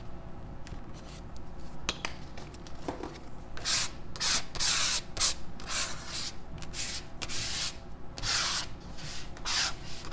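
A flat scraping tool dragged over textured paper, spreading acrylic paint in a dozen or so quick scraping strokes that start about three and a half seconds in. Before that come only a few light clicks.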